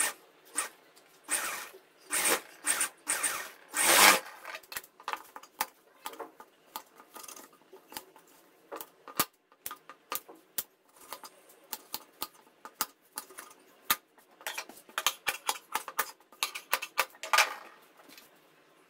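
Scissors snipping and trimming cloth: a string of short sharp clicks, with louder swishes of cut fabric being handled in two bursts, from about a second in to about four seconds, and again near the end.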